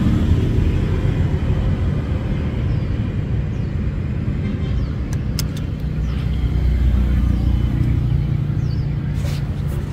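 Car engine running with a steady low rumble, and a few faint clicks partway through.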